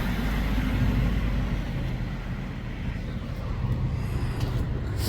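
Steady low rumble of road traffic, with a vehicle engine humming nearby.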